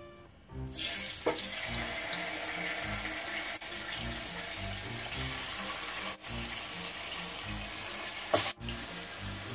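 Marinated chicken pieces sizzling in hot oil in a frying pan as they are laid in. The steady sizzle starts about a second in, with a sharp, louder burst near the end.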